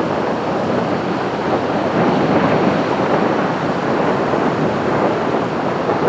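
Heavy ocean surf breaking and washing up a sandy beach in a steady rush that swells and eases gently, with wind on the microphone.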